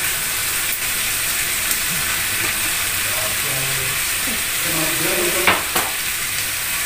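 Food sizzling steadily in a frying pan, with two sharp knocks near the end.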